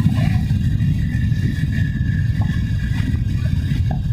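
A motorcycle under way: a steady, dense low rumble of wind buffeting the phone microphone, mixed with the engine and road noise.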